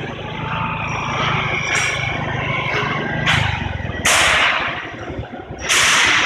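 Steady low hum of a rotary sand dryer's machinery, which stops about three and a half seconds in. Three loud bursts of hiss follow.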